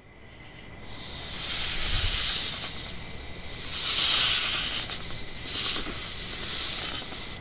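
Night insects chirring in steady high tones under a hissing buzz that swells and fades several times, fading in at the start.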